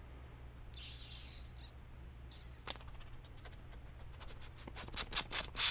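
A run of sharp metallic clicks, about five or six a second, getting louder toward the end, typical of a ratchet wrench being worked on a bolt. A short high squeak comes about a second in, and a steady low hum runs underneath.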